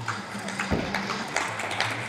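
Scattered hand claps from spectators, with a dull thump about two-thirds of a second in, over quiet background music.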